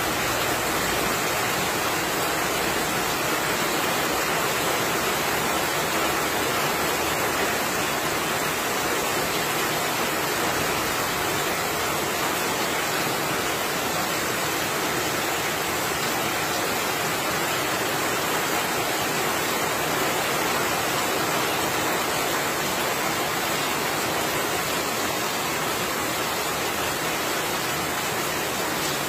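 Heavy rain pouring down steadily on tiled roofs and wet pavement: an even, unbroken hiss.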